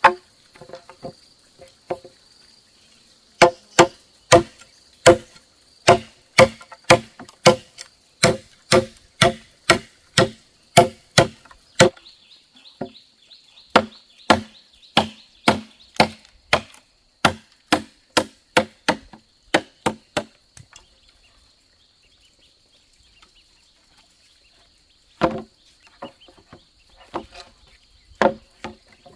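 Chopping at bamboo with a blade: about two hollow, briefly ringing knocks a second. The chopping pauses briefly partway through, stops after a while, and a few last strikes come near the end. A steady high insect drone runs underneath.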